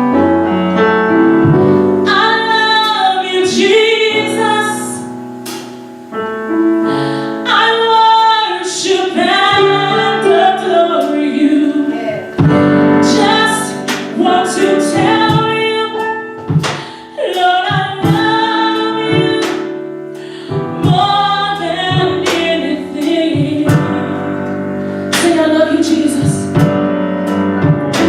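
Gospel singing with keyboard accompaniment, a female voice carrying the melody in phrases a few seconds long over sustained piano chords.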